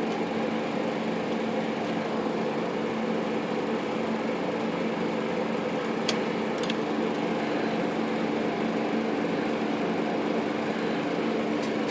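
Steady mechanical hum with a constant low drone, like a running fan or air-conditioning unit, with two faint light clicks about six seconds in.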